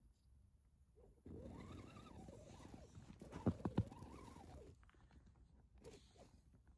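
Electric motor and gears of an RC crawler running under throttle in deep snow, whining up and down in pitch for a few seconds, starting about a second in. Three sharp knocks come in the middle.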